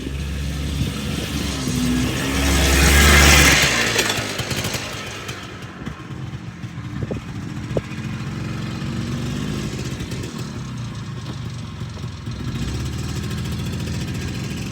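An engine running steadily, with a loud surge about two to four seconds in before it settles back to an even run.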